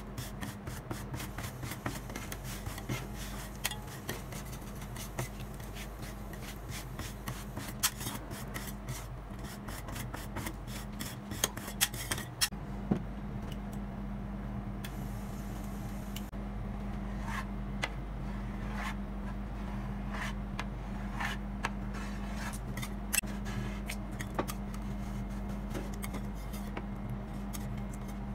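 Metal spatulas scraping and tapping on the frozen steel plate of a rolled ice cream machine as a thin layer of ice cream is spread, scored into strips and rolled, over a steady low hum. The tapping is rapid in the first half, then eases to sparser knocks.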